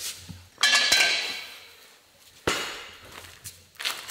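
Metal tower-blind parts clanking as they are set down: two sharp ringing clanks, about half a second in and about two and a half seconds in, and a lighter knock near the end.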